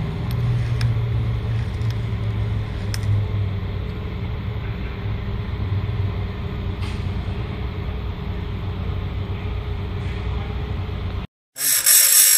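A steady low hum with a few faint clicks as the chain is moved along in the sharpener. Then, after a brief break near the end, an electric chainsaw-chain grinder's wheel grinds a cutter tooth with a loud, high-pitched grinding sound, throwing sparks.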